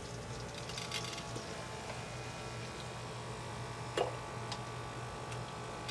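Small electric coolant pump running with a steady hum in an RC truck's water-cooling loop, with one short click about four seconds in.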